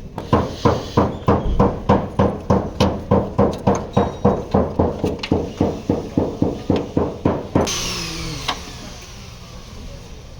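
Hammer striking car body sheet metal in a steady rhythm, about four blows a second, as dented panels are beaten out in collision repair. The blows stop about seven and a half seconds in, leaving a quieter steady noise with a faint falling whine.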